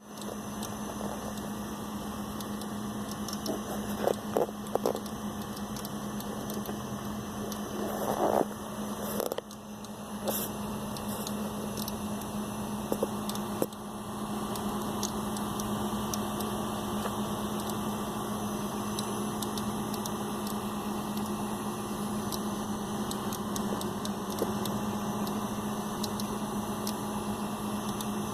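Computer running with a steady hum and whir, broken by irregular clicks from inside it, a few close together about four seconds in and more around eight to ten seconds. The cause of the clicking is unknown to the owner.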